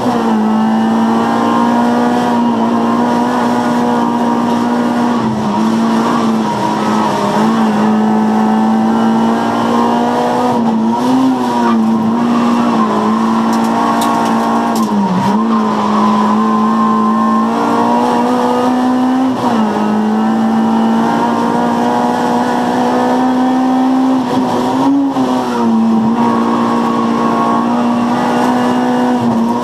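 Honda Civic Type R race car's four-cylinder engine heard from inside the cabin, pulling hard at high revs. Its pitch holds high and dips briefly every few seconds at the gear changes.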